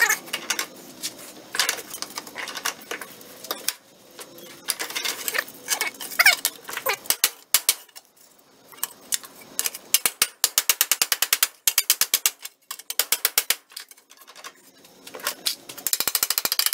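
A rusty steel bracket is worked in a bench vise with locking pliers, giving metal scraping and clanking. Twice it goes into runs of quick rattling clicks, about eight a second, the second run near the end.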